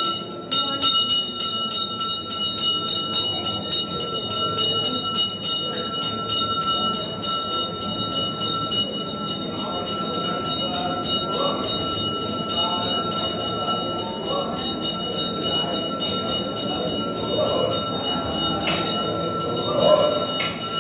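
A temple bell struck rapidly and continuously in an even rhythm, ringing on a few steady pitches. Underneath is a murmur of many voices reciting together.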